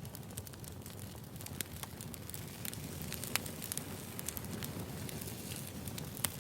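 Wood fire crackling: irregular sharp pops and snaps over a steady low rumble of burning firewood.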